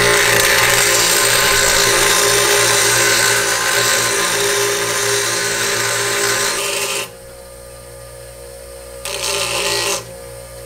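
Six-inch bench grinder grinding the end off the pin of a heavy-duty steel hinge: loud grinding for about seven seconds, then a second brief touch about nine seconds in. Between and after the grinding, the grinder's motor runs on alone with a steady hum.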